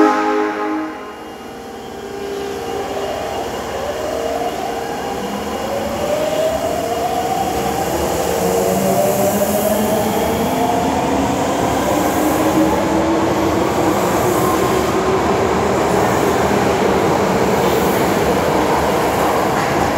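Osaka Metro 22-series subway train pulling away. The end of its door chime, a stack of steady tones, cuts off about a second in. Then the traction motors whine, rising slowly in pitch as the train gathers speed, and settle into steady running noise with wheel and rail sound.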